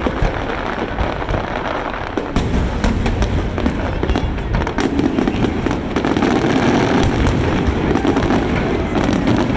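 Fireworks going off in quick succession: many sharp bangs and crackles over a continuous rumble of overlapping bursts, getting a little denser about halfway through.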